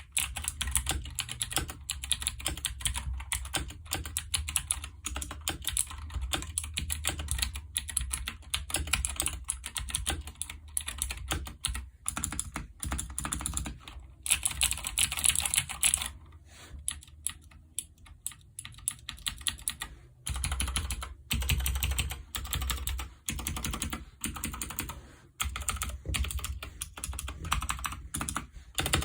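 Fast, continuous typing on a Royal Kludge RK61 60% mechanical keyboard with clicky blue switches: a dense run of key clicks, broken by a few brief pauses.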